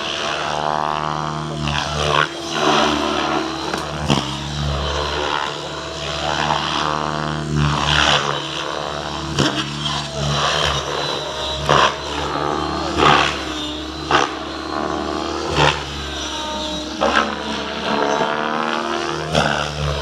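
Radio-controlled helicopter flying 3D aerobatics: the motor and rotor whine swings up and down in pitch over and over, with sharp whooshing blade swishes every second or two.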